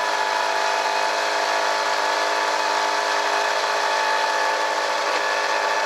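Tohatsu portable fire pump's engine running loud and steady at an even pitch.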